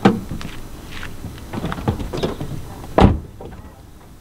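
Mercedes SLK driver's door in use as someone climbs into the seat: a knock at the start, a few small knocks and rustles, then the door shutting with a sharp thunk about three seconds in, the loudest sound.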